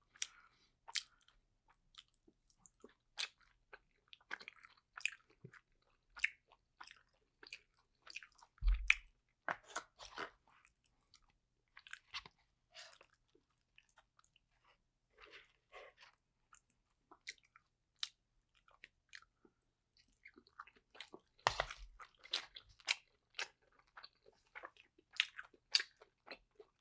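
Close-miked chewing and wet mouth clicks of someone eating soft dumplings, quiet and irregular, with a louder knock about nine seconds in and again a little past twenty seconds.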